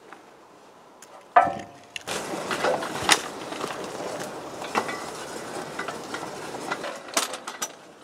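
Rusty steel bridge beam being shifted on a concrete pier: a ringing metallic clank about a second and a half in, then a few seconds of scraping with scattered knocks.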